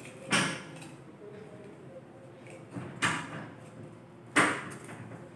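Handling noise from drawing a folded paper question slip out of a bottle and opening it: three short, sharp noises, one just after the start, one past the middle and one near the end.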